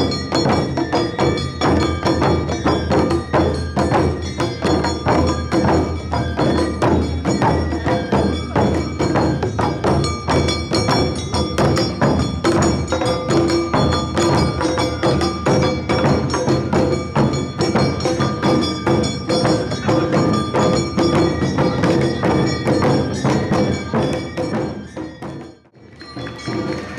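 Awa odori narimono band playing: taiko drums and a clanging kane gong beat out a fast, driving rhythm under flute melody. The music drops away briefly near the end, then comes back in.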